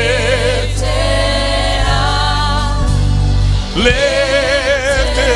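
A woman singing a gospel worship song into a microphone over sustained keyboard chords and bass, holding long notes with a wavering vibrato; a new sung phrase begins about four seconds in.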